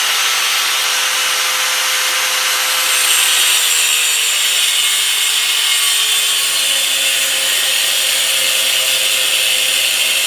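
A power tool cutting through 1/8-inch steel flat stock: a steady, loud, hissing cut with a motor whine that sags slightly in pitch as it works through the plate.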